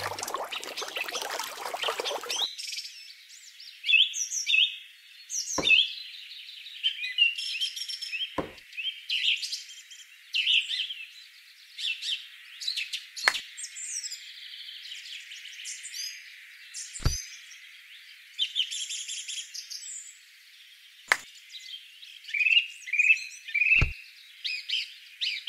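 Birdsong ambience: many small birds chirping and twittering, with a handful of sharp clicks along the way.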